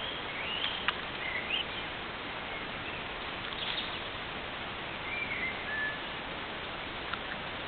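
Small birds singing, with scattered short chirps and whistled phrases, over a steady hiss. A sharp click about a second in.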